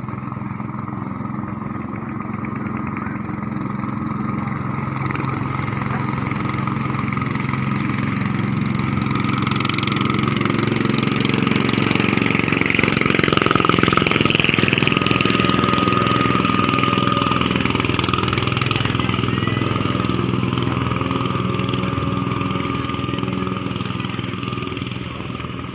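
Motorboat engines running at racing speed, a pompong and a speedboat. The sound grows steadily louder to a peak about halfway through, with a brief high whine, and then fades.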